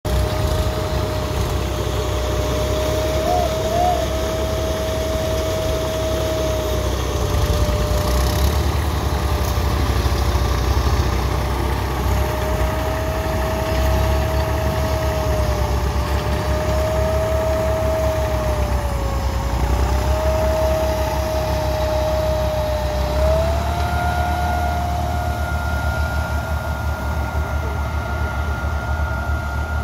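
IMT 539 diesel tractor engine running steadily while pulling an OLT corn planter across a ploughed field, with a steady whine over the engine note that steps up in pitch near the end. It grows a little quieter near the end as the tractor moves away.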